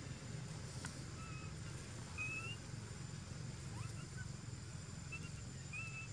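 Faint, short high-pitched animal calls, about half a dozen brief squeaks spread over a few seconds. They sit over a steady low outdoor rumble, with a single click about a second in.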